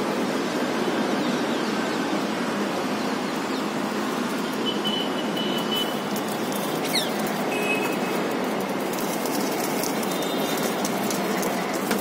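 Rock pigeons' wings flapping and clattering over the feeding ledge in the last few seconds, over a steady hum of city traffic. A couple of brief high whistles come midway.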